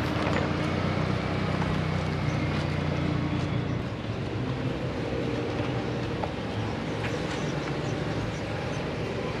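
Car engines running and tyres rolling over a cobblestone driveway: a steady low rumble, with the engine hum strongest for the first four seconds and then easing.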